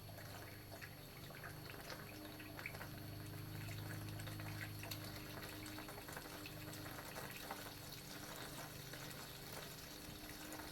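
Engine coolant poured from a gallon jug into the pressurized coolant reservoir of a 3.6 LFX V6 to top up the cooling system, a steady liquid pour with many small splashy crackles over a steady low hum.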